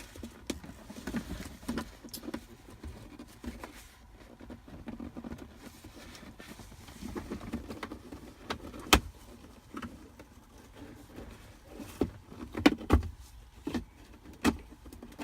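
Plastic shifter trim on a Jeep Grand Cherokee's center console being handled and pressed back into place: low rustling with scattered sharp clicks and knocks. The loudest click comes about nine seconds in, and a cluster comes a few seconds before the end.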